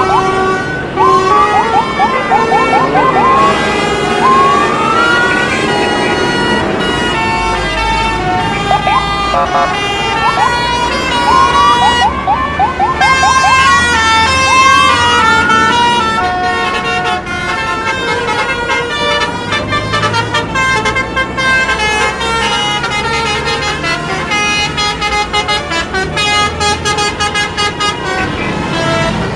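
Basuri multi-tone bus horn (Indonesian 'telolet' horn) sounding shifting tone patterns, with rising siren-like whoops in the first half and quick repeated toots in the second half. Road noise underneath.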